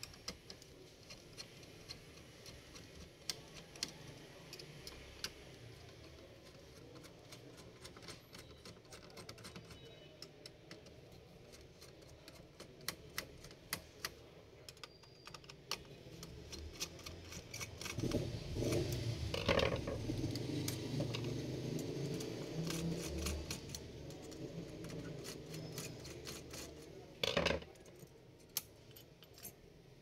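Screwdriver working the CPU heatsink's retaining screws on an all-in-one PC's motherboard: scattered small metal clicks and ticks. There is a stretch of handling and rubbing noise in the middle and a louder clink near the end as the heatsink is freed.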